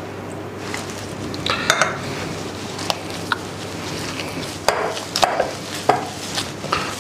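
Hands kneading a moist bread-crumb and milk dough in a glass bowl: soft squishing and pressing, with a few sharp knocks of the glass bowl scattered through.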